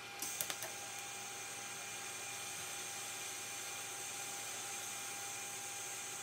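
TIG welding arc struck with a few sharp crackles just after the start, then burning with a steady high hiss as a seam on a sheet-metal box is welded with hand-fed filler rod.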